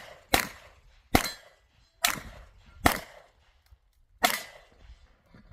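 Handgun shots fired through a competition shooting stage: five sharp shots, a little under a second apart, with a longer pause before the last one. Each shot has a short echo.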